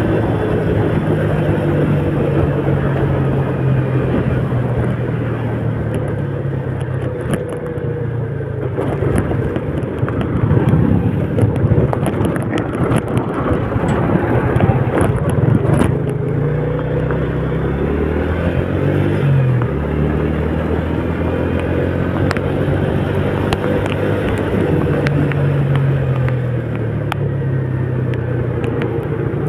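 A road vehicle's engine running while driving, its pitch rising and falling as it speeds up and slows, under a steady wash of heavy rain and road noise with scattered sharp ticks.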